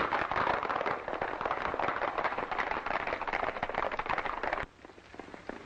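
Several horses galloping: a dense clatter of hoofbeats that cuts off suddenly about four and a half seconds in, followed by fainter, sparser hoofbeats.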